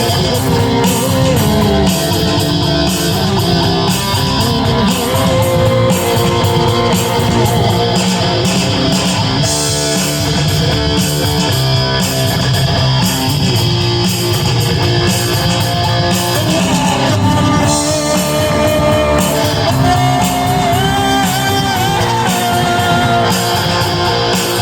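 Rock music with electric guitar played through a distortion effect, strummed and picked steadily, with some bent, wavering notes near the end.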